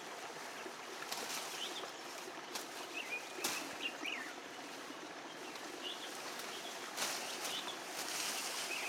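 Outdoor ambience: a steady background hiss with scattered short bird chirps, and a few light clicks.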